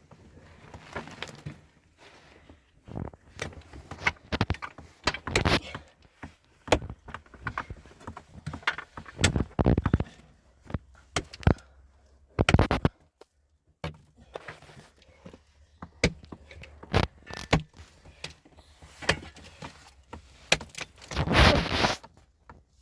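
Irregular knocks, thunks and scrapes of objects being handled, with the loudest knocks about nine and twelve seconds in and a longer scraping clatter near the end.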